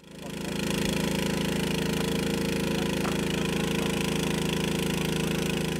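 A small engine running steadily at an even speed, with a fast, regular pulse. It fades in over the first second.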